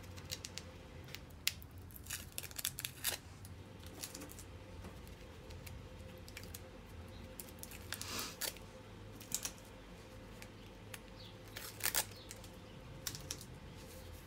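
Packing tape being peeled off rolled canvases in short rasping rips, several pulls scattered through, the loudest about eight and twelve seconds in.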